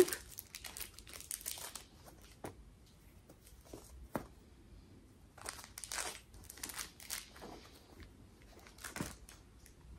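Faint rustling and crinkling of packaging being handled, in several short spells, with a few light ticks and taps.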